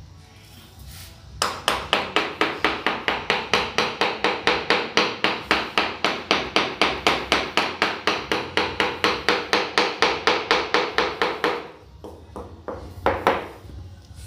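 Mallet tapping ceramic baseboard tiles in quick, even strikes, about four or five a second for some ten seconds, each strike with a short ringing note, then a few more taps near the end. The taps seat the baseboard tiles into their mortar along the foot of the wall.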